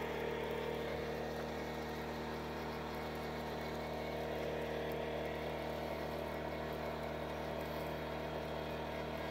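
A machine running with a steady, unchanging low hum.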